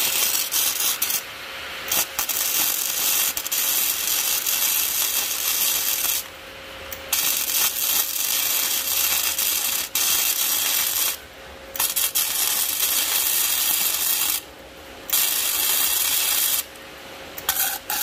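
Protech 250 MIG welder arc crackling and spattering in gasless (flux-core) mode, in several runs broken by about five short pauses where the trigger is let off. The welding current is set a bit high, as the welder judges it afterwards.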